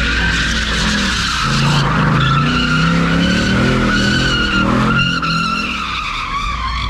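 Ford Mustang doing donuts, its rear tyres squealing continuously on the asphalt while the engine is held at high revs, its pitch rising and falling.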